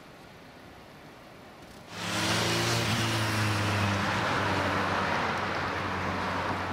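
Road traffic with a motor vehicle engine running close by, a steady low engine hum under tyre and road noise; it starts suddenly about two seconds in and eases off slowly toward the end.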